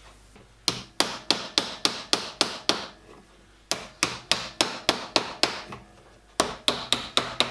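Hammer blows on a copper chimney cowl, working out a bulge in its radius: three runs of quick, sharp, ringing strikes, about three a second, with short pauses between.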